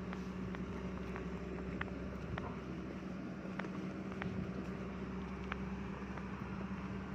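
An engine running steadily with a low, even hum, with sharp clicks or knocks scattered irregularly through it.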